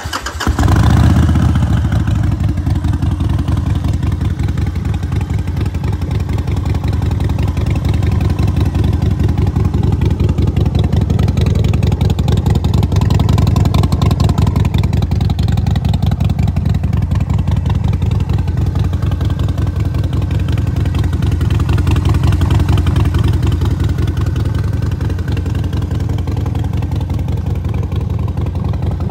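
Harley-Davidson Sportster 1200's air-cooled V-twin running at a steady idle through a Vance & Hines aftermarket exhaust, with an even pulsing beat.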